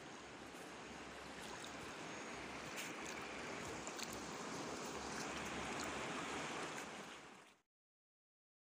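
Fast-flowing river rushing over rocks, a steady noisy rush that swells slightly, then cuts off suddenly near the end into dead silence.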